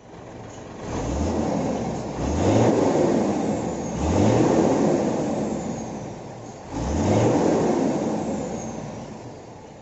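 Diesel truck engine being revved four times, each rev climbing quickly in pitch and dropping back toward idle between blips.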